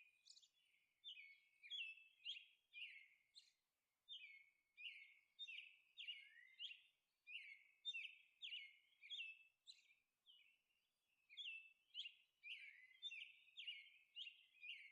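Faint birds chirping: short falling chirps repeated steadily, about two a second.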